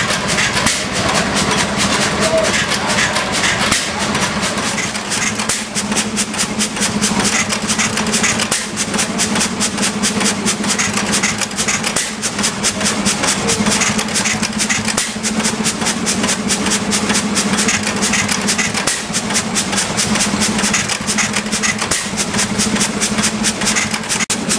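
Amanco 8 HP Mule Team hit-and-miss stationary petrol engine running, with a rapid, even clatter over a steady low hum.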